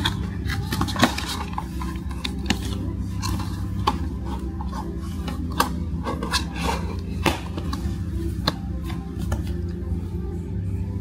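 Cardboard blind-box display case being handled and folded open: scattered clicks, taps and scrapes of card under the fingers.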